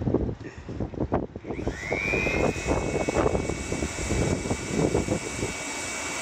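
Small pulsejet engine coughing and popping unevenly as it is being started, not yet running smoothly. About one and a half seconds in, the air blower feeding it whines up and then holds a steady high whine.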